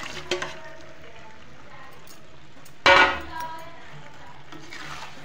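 Utensils clinking against a kadhai as chicken pieces are tipped into it, with one loud metal clang about three seconds in that rings briefly.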